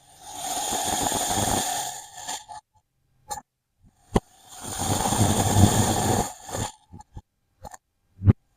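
A blade cutting and scraping through kinetic sand in two long rasping strokes, with a few short clicks in the silent gap between them.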